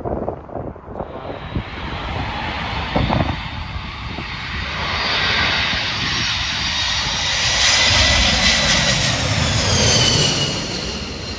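Twin-engine jet airliner on landing approach passing low overhead: the engine noise builds to its loudest as the plane goes over, and its high turbine whine drops in pitch as it passes. Wind gusts buffet the microphone at the start.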